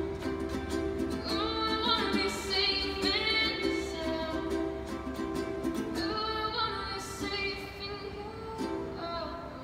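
A teenage girl singing live to her own ukulele accompaniment. Sung phrases come and go over the ukulele's steady plucked chords, and the whole eases a little quieter toward the end.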